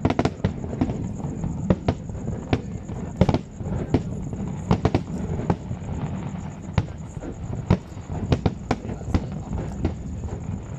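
Aerial fireworks display: shells bursting in a quick, irregular string of bangs, about two a second, over a steady low rumble.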